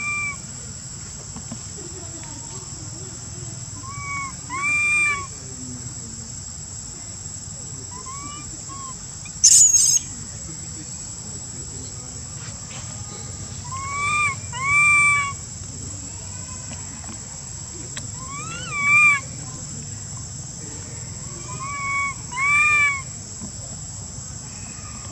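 Infant long-tailed macaque giving short, plaintive coo calls, each rising then falling and often in pairs, every few seconds: the cry of a baby separated from its mother. A steady high drone of insects runs underneath, and a brief loud noisy burst comes about nine seconds in.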